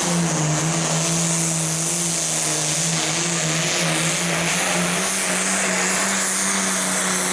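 International Harvester 1066 pulling tractor's turbocharged diesel engine running at full throttle under load as it drags a weight-transfer sled, its pitch held steady.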